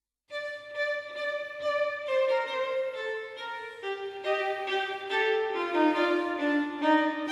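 Instrumental music that starts after a brief moment of silence: a single melody line whose notes step gradually lower in pitch.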